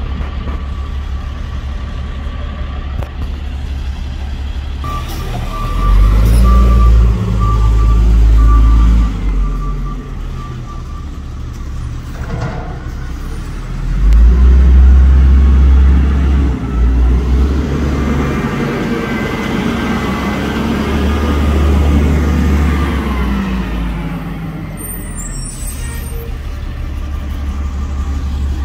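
Front-loader garbage truck's engine running and revving up in three loud surges as it moves off, its pitch rising and falling. A reversing alarm beeps steadily from about five to ten seconds in.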